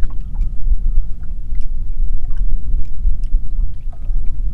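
Wind buffeting the microphone as a heavy low rumble, with small waves slapping and ticking against the boat's hull. A faint high tone comes and goes in short repeated dashes.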